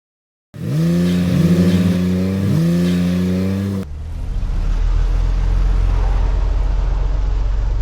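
Car engine accelerating, its pitch climbing three times as if shifting up through gears. Just under four seconds in, it cuts abruptly to a steady low engine rumble.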